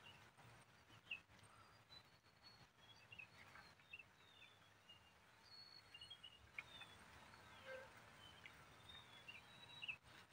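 Near silence with faint, scattered bird chirps.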